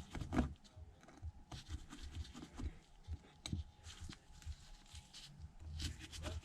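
Faint, irregular small clicks and light scraping of precision tools, a screwdriver and tweezers, working the screws on an iPhone 6s Plus display's back plate, with a few sharper ticks as tiny parts are handled and set down.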